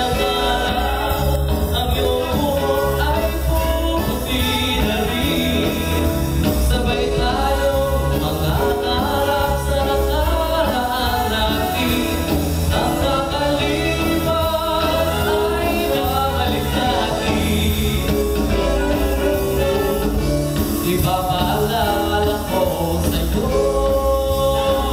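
A man singing a song into a microphone, with instrumental accompaniment and a steady bass line.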